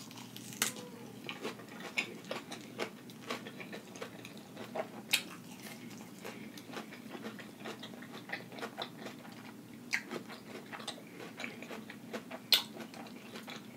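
A person biting into and chewing a mouthful of lettuce-wrapped plant-based burger close to the microphone: soft irregular wet mouth clicks throughout, with a few sharper clicks now and then.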